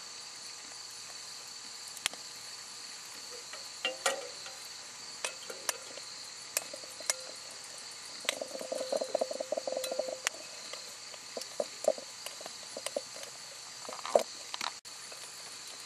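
Crickets chirping steadily in the background, with a spoon clinking and scraping against a glass mixing bowl as water is stirred into acorn meal to make dough. A run of quick stirring strokes comes a little after halfway.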